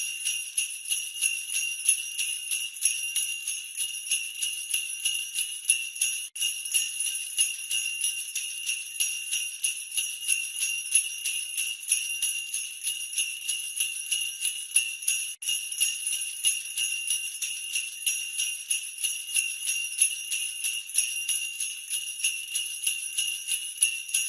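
Small jingle bells shaken continuously in a dense, high, rhythmic jingle, cutting out for an instant twice, about 6 and 15 seconds in.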